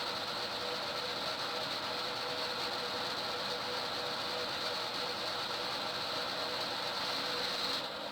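Homemade lathe running steadily with a constant high whine while a drill bit bores into the wooden end of a pool cue; the sound eases a little near the end.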